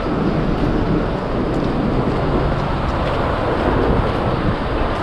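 Steady city street noise of traffic passing, with wind rumbling on the microphone.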